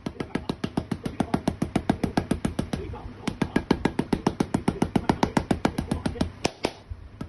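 Rapid, regular mechanical knocking from a working machine, about eight sharp strikes a second, briefly thinning out about three seconds in and again near the end.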